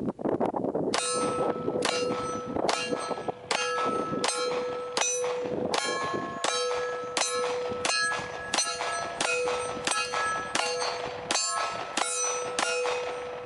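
A steady string of about seventeen shots from a 9mm Glock pistol, roughly one every 0.7 seconds, each followed by a metallic ringing.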